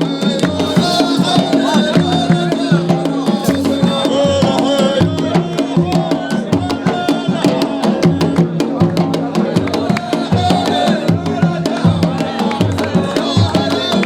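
Music with a busy, steady drum beat under a sustained melody line, of the kind played for a wedding procession.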